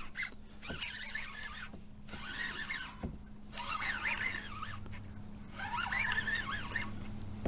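Baitcasting reel being cranked in bursts while fighting a hooked bass, its gears whirring in rising and falling pitch, over a faint steady low hum.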